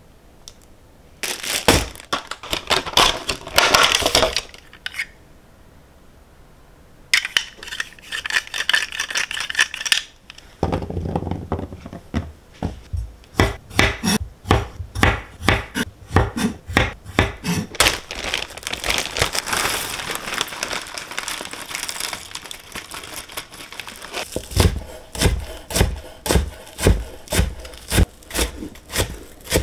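Crinkling of a plastic blister pack near the start, then a kitchen knife chopping garlic cloves and green onions on a wooden cutting board, in steady strokes about two or three a second.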